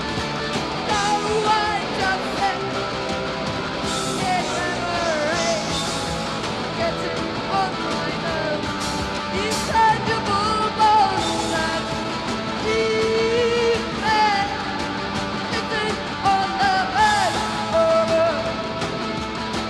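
Post-punk band playing live: a woman sings and yells over a full band of drums with cymbal crashes, bass and guitar.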